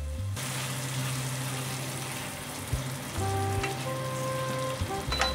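Ground beef and onions sizzling in a stainless steel frying pan as they are stirred with a spatula, with a sharp click near the end, over background music.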